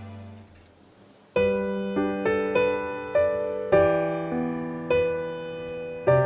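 Background music: a piano piece, a new phrase starting about a second and a half in after the previous music fades away, with single notes struck every half second or so over held chords.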